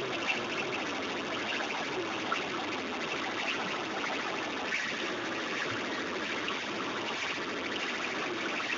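Steady, dense din of a large night-time crowd at a sound-system competition, heard as a hiss-like wash with no clear beat or words.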